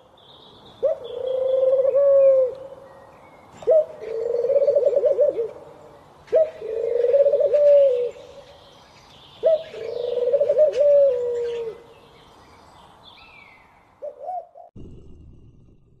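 Domestic pigeons cooing: four long rolling coos, each opening with a sharp rising note, about every three seconds, then a short coo near the end. Faint high chirps of small birds sound above them.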